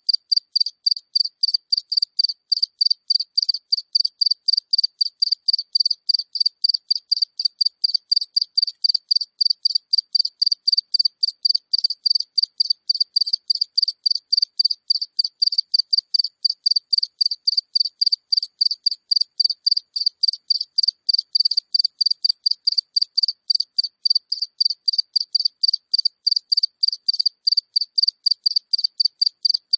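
A single cricket chirping close up: an even, unbroken run of short high chirps, about three a second.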